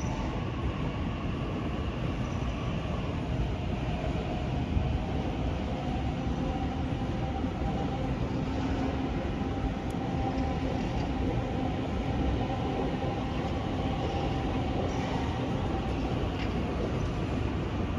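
Electric double-deck commuter trains running through a rail junction: a steady rumble of wheels on track, with a steady hum that comes in about four seconds in and fades near the end.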